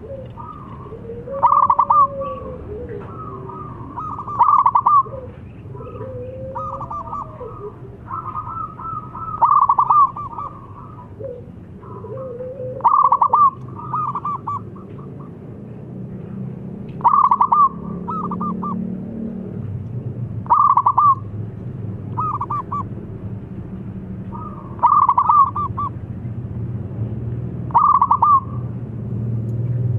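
Zebra dove (perkutut) singing its staccato cooing song, a short loud phrase every three to five seconds, with softer notes in between, over a steady low hum.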